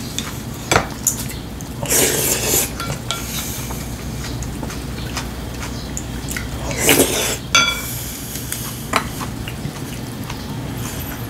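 Wooden chopsticks tapping and scraping against ceramic bowls and plates during a home-cooked Korean meal, a scattering of sharp clicks and a couple of brief ringing clinks, with bursts of eating noise between.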